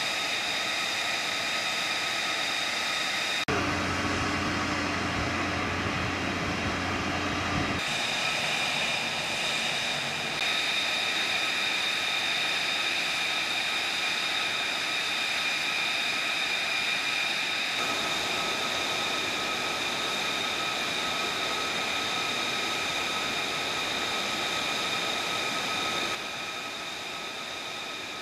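F-35B Lightning II fighter jets running on the ground at idle: a steady high whine made of several held tones over a rushing hiss. The mix shifts abruptly a few times, and a lower hum joins between about 4 and 8 seconds in.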